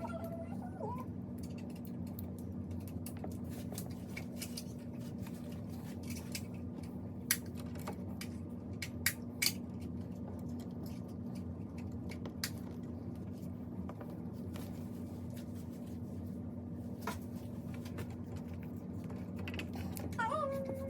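Steady low room hum with a few sharp, light clicks and taps scattered through the middle, like small objects being handled.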